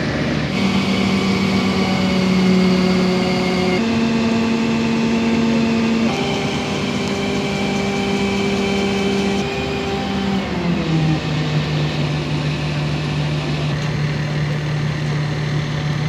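A heavy diesel engine running under load, its speed held steady and then stepped up and down several times, settling to a lower steady note after a short downward glide about eleven seconds in.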